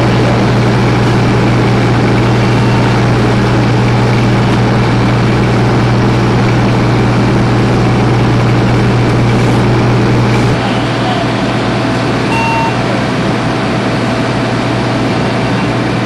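Heavy fire-truck diesel engine running steadily with a deep hum. About ten seconds in, the hum drops out and the sound falls to a quieter rumble.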